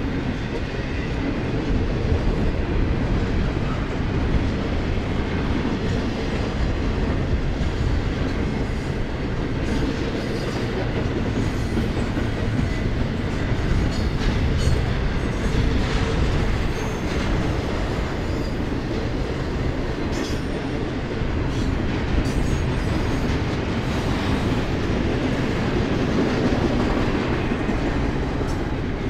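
Double-stack intermodal freight train's well cars rolling past: a steady rumble with the wheels clicking over the rail joints.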